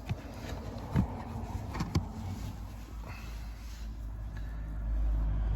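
Fuse-box trim cover being handled and tucked into place: a few light knocks about one and two seconds in, over a steady low rumble that grows louder about five seconds in.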